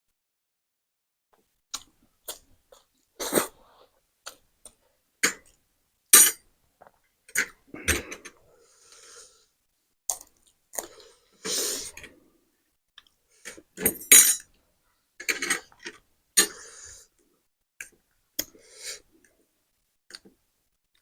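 Close-up eating of spicy noodles: irregular short bursts of chewing and slurping with wet mouth clicks, separated by brief pauses.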